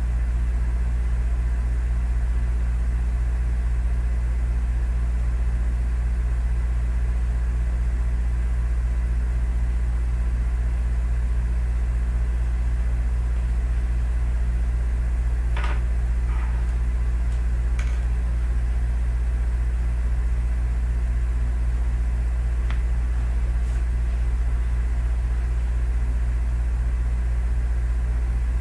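A steady low hum with an unchanging pitch and level, with a few faint clicks about sixteen, eighteen and twenty-three seconds in.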